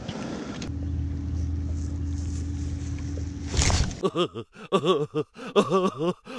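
Boat motor running with a steady low hum, cut off by a brief loud noise about three and a half seconds in. Electronic music with a wobbling synth melody then starts about four seconds in.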